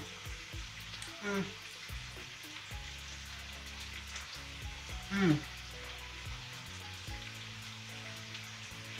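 Food sizzling as it fries in a pan, a steady hiss throughout. A short voice sound falls in pitch about a second in and again about five seconds in.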